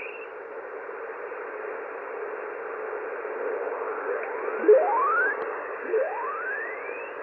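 Icom IC-M802 HF receiver's speaker on upper sideband: steady band-noise hiss, and in the second half several rising whistles as the tuning steps down in frequency across signals on the 20-metre band.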